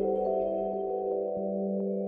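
Calm music of sustained, ringing bell-like tones over a steady low note, with a new note coming in every half second or so.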